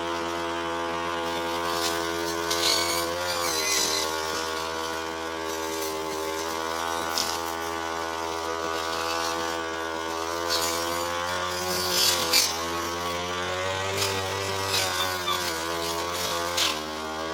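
Petrol brush cutter running steadily at high speed, its engine note dipping and wavering a few times as it cuts through tall, thick grass, with scattered sharp clicks.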